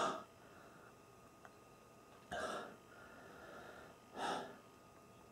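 A man breathing hard through his open mouth, with three sharp breaths about two seconds apart, from a tongue burning after eating raw garlic cloves.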